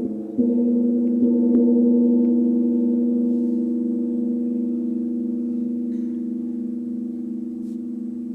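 A deep, ringing struck instrument sounds several steady tones together. It is struck again about half a second in and then slowly fades.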